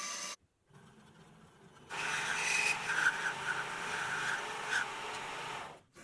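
Metal lathe boring the inside of a bore in a block held in a four-jaw chuck. A low hum of the lathe running comes first. About two seconds in a loud, steady cutting noise starts, with a ringing tone, and stops suddenly near the end.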